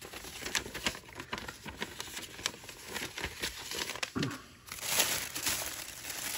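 Clear plastic packaging crinkling and crackling as hands handle it, in irregular bursts that grow busier near the end.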